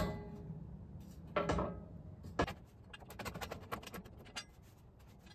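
Steel pallet fork tines clanking against the tractor's quick-attach fork frame as they are fitted on: a sharp ringing clank at the start, another ringing clank about a second and a half in, then a knock and a quick run of small metallic clicks and scrapes as a fork slides into place.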